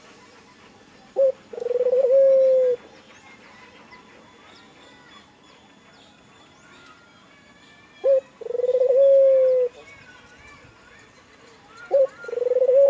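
Puter dove (domestic collared dove) cooing three times, a few seconds apart: each call is a short clipped note and then a long drawn-out coo of about a second and a half, the last one running on past the end. Faint chirps of small birds sound in the background.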